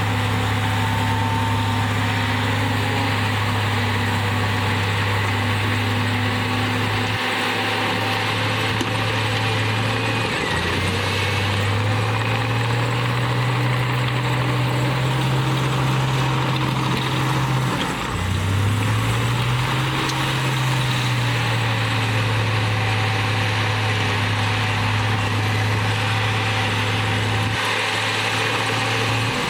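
Komatsu D58E crawler bulldozer's diesel engine running steadily. Its pitch drops briefly a third of the way in, runs higher for a while, then dips sharply about two-thirds through and picks back up.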